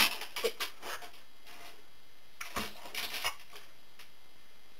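Clicks and knocks from a dog shifting on a homemade rocking wobble board: a few at the start, then a second short cluster about two and a half seconds in as the dog settles into a sit and the board rocks under its weight.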